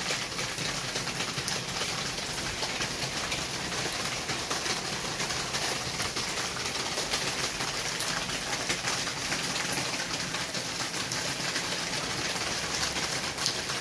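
Steady rain falling outside the windows: an even hiss with a fine patter of drops striking the glass and sill.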